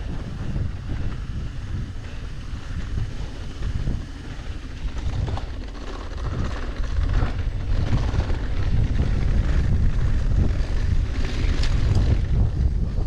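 Wind buffeting the camera microphone over the rumble of mountain bike tyres rolling fast on a dry dirt trail, growing louder from about seven seconds in.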